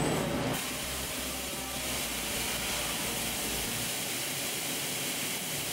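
Compressed-air blast hissing steadily as it cleans and dries a machined part, starting about half a second in.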